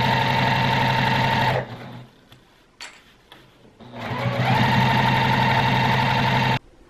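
Electric sewing machine stitching a seam along a zipper. It runs steadily, then winds down to a stop about a second and a half in, leaving a pause with a few faint clicks. Around four seconds in it speeds back up, runs steadily again and stops abruptly near the end.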